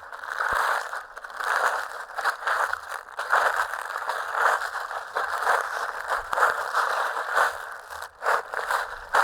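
Footsteps crunching and crackling through fallen leaves at a steady walking pace, about two steps a second.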